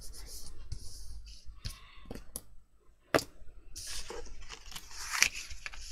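Hands rubbing and pressing on embossed cardstock, with the card shifting and sliding over a hard tabletop in short rustling strokes. A sharp tap about three seconds in, and another near the end.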